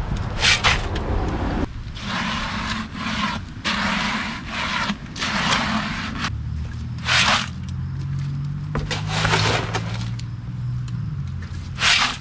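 Wet, watery concrete scooped from a wheelbarrow and dropped into a cardboard sonotube form: a series of wet scrapes and splats every second or two. A low engine hum joins about halfway through and fades near the end.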